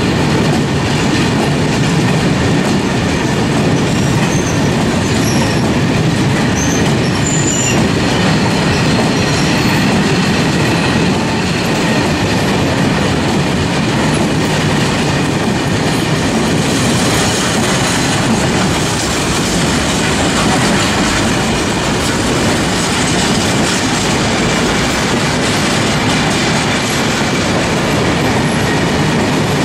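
A long freight train of covered wagons rolling past at close range, its wheels rattling and clattering steadily over the rails. A few short, faint high squeaks come from the wheels about five seconds in.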